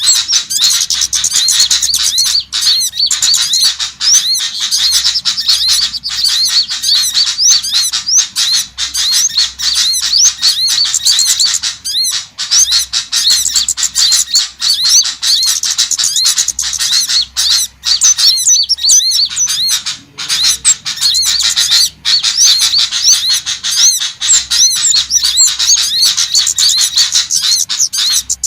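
Dense, unbroken chirping and twittering of many small songbirds at once, rapid high notes overlapping without pause: a bird-lure (pikat) recording meant to call in small birds.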